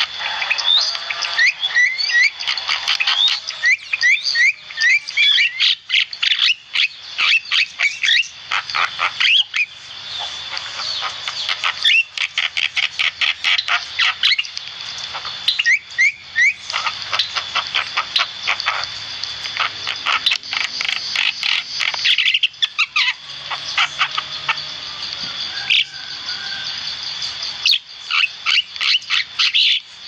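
Javan myna (jalak kebo) chattering on and on: rapid runs of harsh clicking notes mixed with short rising and falling whistles, with a few brief pauses, over a steady high-pitched tone.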